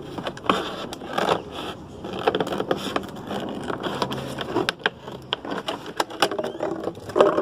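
Scissors cutting around the base of a thin plastic 5-litre water bottle: repeated snips and clicks of the blades through the plastic, with the bottle wall crackling and crinkling as it is turned.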